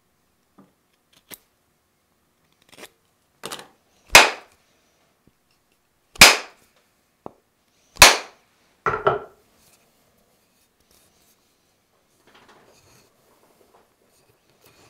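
Knocks of hafting a steel cross-peen hammer head onto its hickory handle. Light taps build to three loud, sharp blows about two seconds apart, followed by a quick rattle of knocks.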